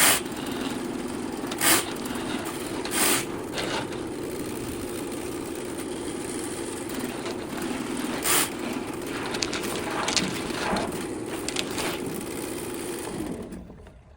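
A motor running steadily, with several sharp knocks over it, that shuts off near the end.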